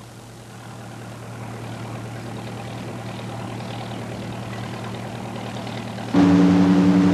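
A faint low hum and hiss that slowly grow louder. About six seconds in, a loud steady engine drone with two held tones cuts in abruptly: a boat's engine idling in a canal lock.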